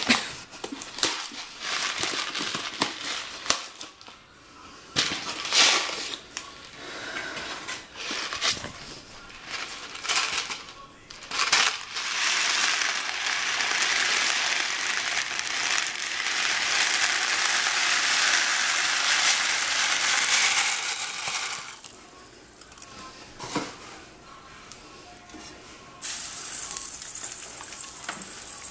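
A cardboard box of Kraft Dinner handled and opened, with scattered clicks and rustles. The dry macaroni is then poured from the box into a pot of hot water, a steady rush of sound lasting about nine seconds. Near the end come quieter sounds of a spatula stirring in the pot.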